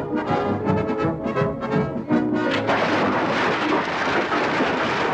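Orchestral cartoon score: quick, staccato pitched notes, giving way about halfway to a dense, noisy din.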